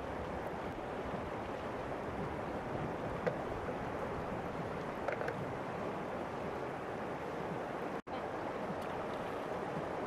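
Steady rush of the Elbow River flowing over its stony bed, with a few faint clicks. The sound cuts out for an instant about eight seconds in.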